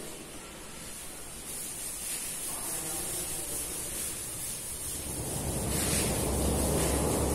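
A chalkboard eraser scrubbing chalk off a blackboard: a steady rubbing hiss that gets louder about five seconds in.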